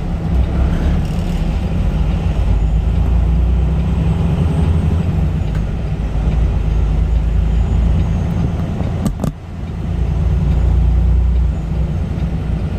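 Peterbilt 579 semi-truck heard from inside the cab: a steady, loud, low engine rumble, broken about nine seconds in by a sharp click and a brief drop in level before the rumble returns.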